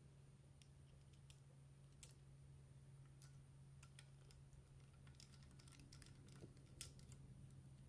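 Near silence: a steady low hum with scattered faint, irregular light clicks, the sharpest about two seconds in and near the end.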